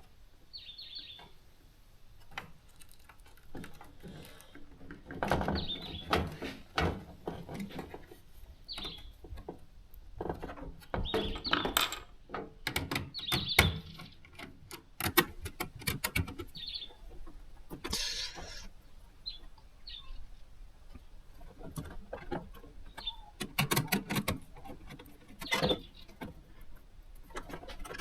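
Irregular clicks, knocks and rustles, with short high chirps now and then.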